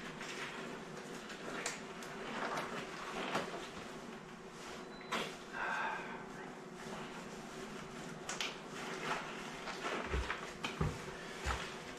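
Rustling, crinkling and light clicks of gloves being pulled off and on, with scattered handling knocks over a faint steady hum.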